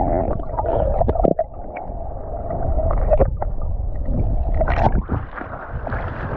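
Wind rumbling on the microphone over the surf at the shoreline, with a few short clicks.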